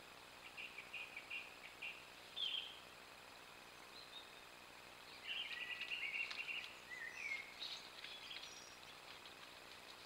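A songbird singing in short phrases: a run of repeated notes about half a second in, then a longer, louder phrase from about five seconds in, over a faint steady hiss.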